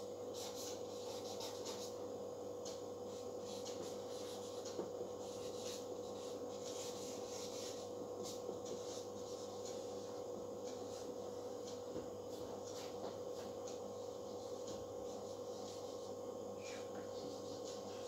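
Marker pen rubbing and squeaking on a whiteboard in many short, irregular strokes as words are written, over a steady background hum.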